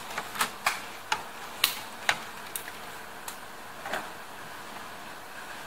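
Light, irregular clicks and taps of metal tongs and a thin plastic tray being handled, about eight or nine in the first four seconds, then they stop.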